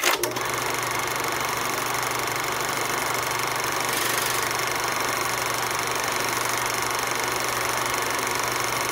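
A machine running at a steady speed: an even mechanical drone that starts abruptly and holds unchanged throughout.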